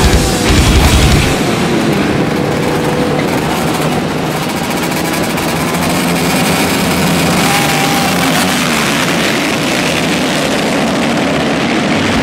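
A pack of motocross dirt bikes revving and racing off the start line together, a dense mass of engine noise. Rock music in about the first second gives way to the engines.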